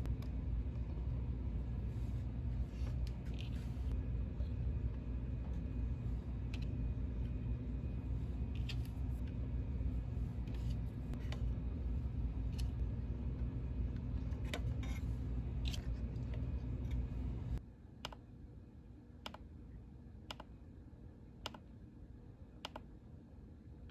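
A steady low hum with scattered light clicks of handling, which cuts off sharply about two-thirds of the way in. Then a row of light clicks about once a second from the buttons of a Peak Atlas DCA55 semiconductor component analyser being pressed.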